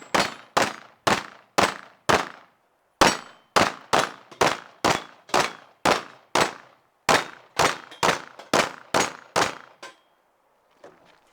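Glock pistol firing a long string of shots, about two a second, with a brief pause about two seconds in, the shots stopping shortly before the end.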